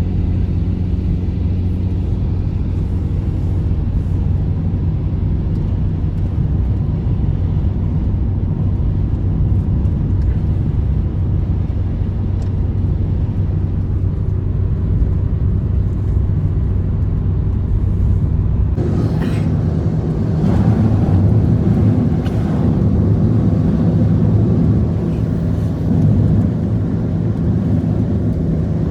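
Blizzard wind, a loud steady low rumble that gets rougher and louder about two-thirds of the way through.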